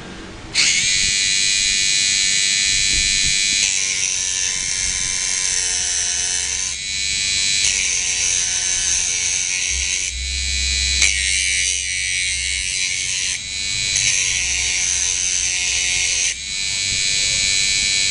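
Mini grinder's small electric motor starting suddenly about half a second in and running at high speed with a steady high whine. Its tone shifts every few seconds, with short dips in loudness.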